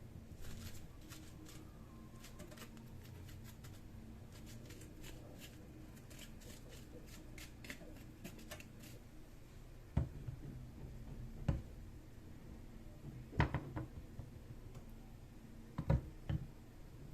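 Kitchen food-prep handling: a quick run of light clicks and crackles for the first several seconds, then a handful of separate knocks spaced a second or two apart from about ten seconds in.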